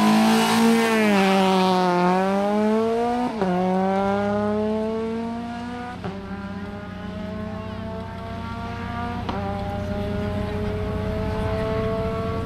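Rally car engine accelerating hard away from a standing start. The revs climb steadily in each gear and drop suddenly at every upshift, about once every three seconds.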